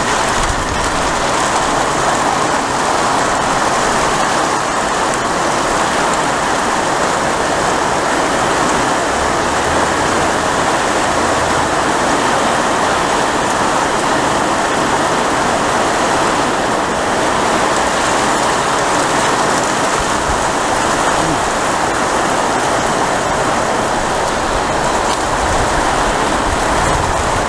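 Heavy thunderstorm downpour: rain pouring down in a loud, steady hiss.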